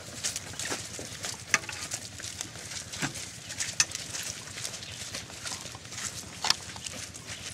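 Several people's footsteps crunching irregularly through dry fallen leaves and grass.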